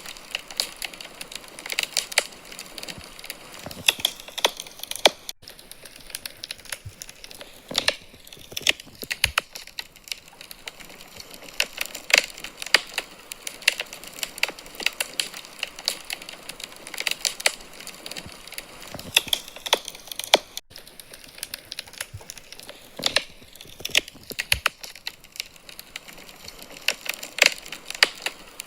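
Wood fire crackling in a fireplace: irregular sharp pops and snaps of burning logs over a soft steady hiss.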